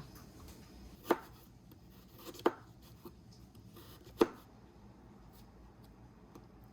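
A kitchen knife chopping vegetables on a cutting board: three distinct sharp chops about a second and a half apart, then a few faint light taps.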